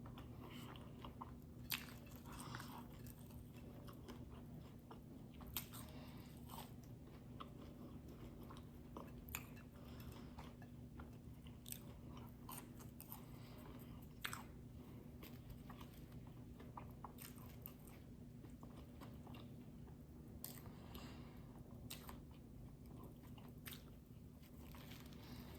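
Close-miked chewing with scattered crisp crunching bites of a bacon and avocado breakfast sandwich and fries, over a faint, steady low hum.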